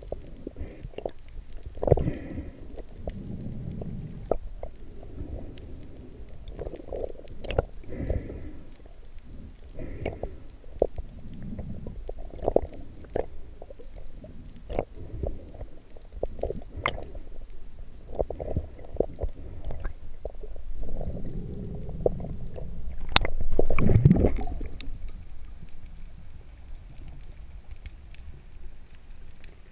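Underwater sound heard by a submerged camera: muffled low rumbling of moving water with many scattered sharp clicks, swelling to a louder rush about 23 to 24 seconds in.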